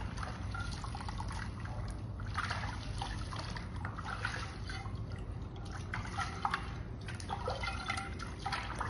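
Soapy water splashing and dripping in irregular bursts as an old frying pan is scrubbed by hand with homemade bar soap.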